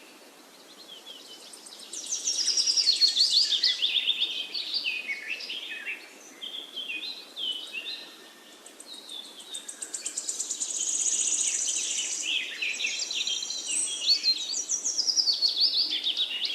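Many small birds chirping and trilling together, with rapid overlapping high notes that swell in waves, quieter for a moment in the middle and building again after.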